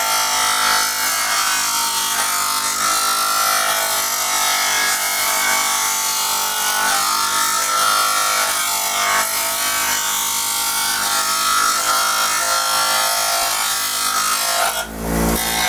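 Bench grinder running with a plastic engine air-cleaner cover pressed against its wheel, grinding away a plastic flap: a steady motor whine under a rough grinding rasp. Near the end the sound dips briefly with a low thump.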